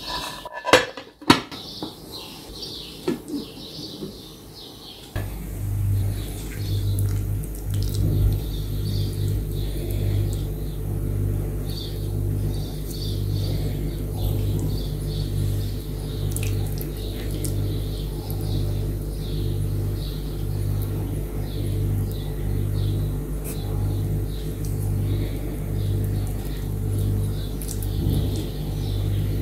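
A ceramic plate clinks sharply against a bowl as it is set on as a lid, a couple of quick knocks about a second in. Then a steady low hum with a slow, even pulse sets in, with small birds chirping over it.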